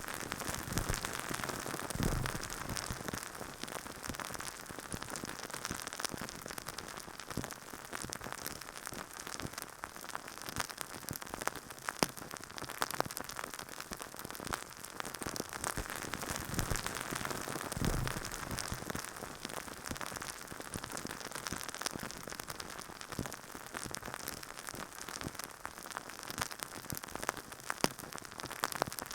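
Dense, continuous crackling and rustling of something rubbed and massaged right against a microphone, with a soft low thump about two seconds in and another around eighteen seconds.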